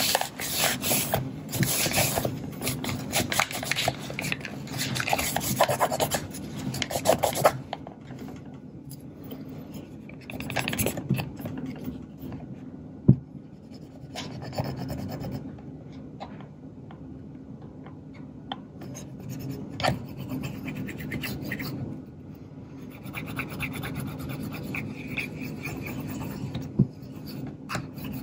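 Hand rubbing and scrubbing on the black plastic body of a Kodak Instamatic 300 camera, working the white oxidation off. Dense, uneven strokes for the first several seconds, then patchier, with a single sharp click about thirteen seconds in.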